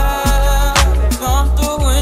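An R&B song plays in the background: deep bass notes land on the beat, with a clap or snare strike about every second, under a sung vocal line.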